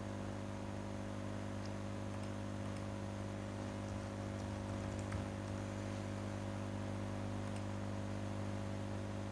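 Steady low electrical hum, with a few faint clicks from computer use scattered through it.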